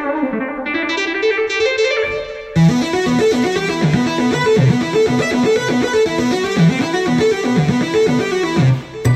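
Yamaha MODX6+ synthesizer playing presets. First a single lead line with pitch bends, then, about two and a half seconds in, a fuller patch with dense chords over a repeating bass pattern. It shifts again near the end.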